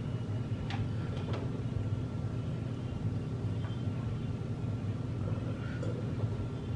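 A steady low background hum, with a few faint clicks and rustles as cooked crab and lobster shell pieces are handled on a plate.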